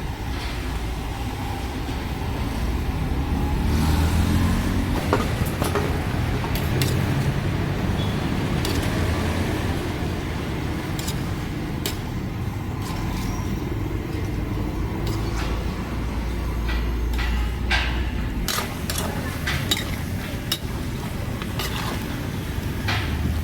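Road traffic: vehicle engines running and passing, a low rumble that swells twice, with scattered sharp clicks.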